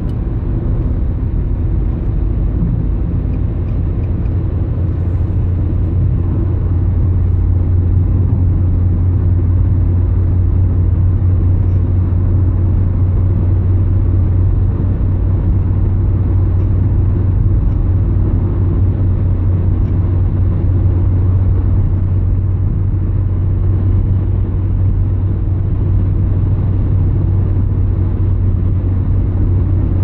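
Steady sleep noise: a continuous low rumble, heaviest in the bass with a hum underneath, and little treble, unchanging throughout.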